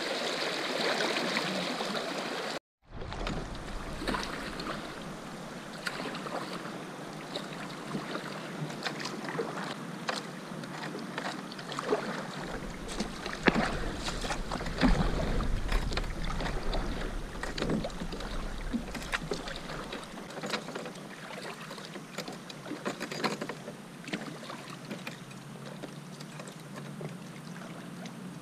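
Water splashing as a small bass is let go over the side. After a brief cut-out, a kayak paddle strokes through the river with scattered knocks and drips, and wind rumbles on the microphone for a stretch in the middle.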